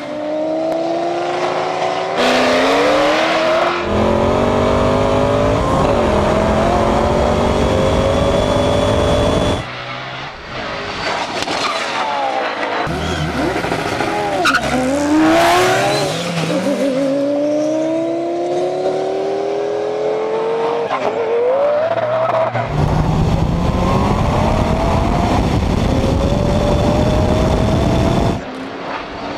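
Twin-turbo V10 supercar engines at full throttle, pitch climbing through the gears with a drop at each upshift, mixed with heavy wind rush on the camera microphone in parts. The sound changes abruptly a few times where clips are cut together.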